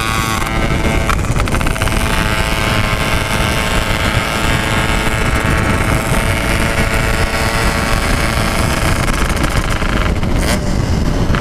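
Yamaha RX-King 135cc two-stroke motorcycle engine running steadily under way through an aftermarket Packing Power exhaust, with wind rush on the microphone.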